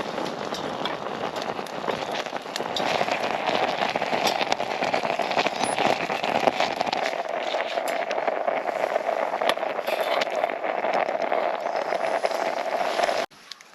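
Steady sizzling with many small crackling pops, as food fries over a campfire; it cuts off suddenly near the end.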